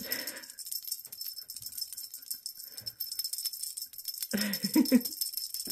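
Small bell on a wand teaser toy jingling without a break as the toy is waved and batted by a kitten. A low voice is heard briefly at the start and again about four seconds in.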